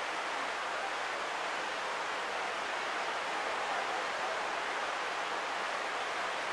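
Steady, even wash of distant surf on the beach below, with no single breakers standing out.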